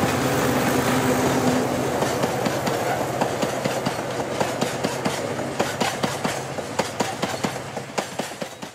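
Loaded freight train passing close by. The diesel locomotive's engine hum comes first, then the hopper wagons roll past with a fast, even clickety-clack of their wheels, easing slightly toward the end.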